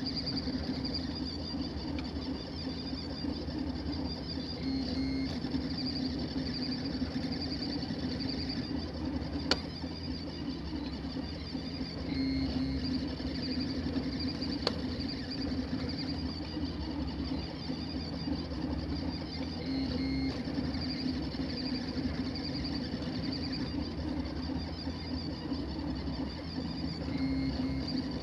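Filament 3D printer at work: its hotend cooling fans whir steadily and its stepper motors hum as the print head traces the layers. The tone shifts briefly about every seven to eight seconds.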